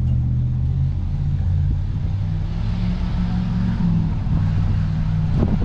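An off-road vehicle's engine idling, its revs rising a little about two and a half seconds in and settling back near four seconds.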